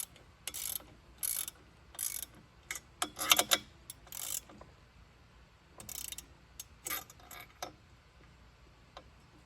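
Metal clicking and scraping in short, regular strokes, about three every two seconds, then a pause and a few more, as the height adjusters on an Alaskan chainsaw mill are worked and tightened to set a 2-inch cut.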